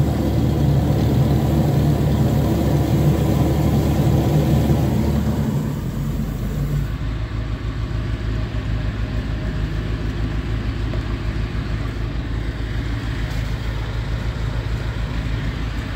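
Drain-jetting machine's engine running steadily while the high-pressure hose flushes a kitchen drain clogged with grease. About five to six seconds in it drops to a lower, quieter speed and runs on steadily.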